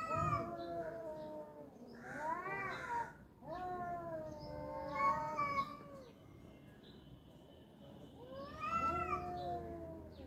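Two tomcats yowling at each other in an angry territorial standoff. There are about four long, wavering wails that rise and fall in pitch, with a pause of a couple of seconds before the last one.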